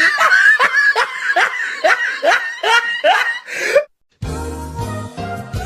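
Meme sound-effect clips: a high laugh in a string of short rising notes, about two or three a second. It cuts off just before 4 seconds in, and after a moment's silence a choppy music clip with heavy low bass notes starts.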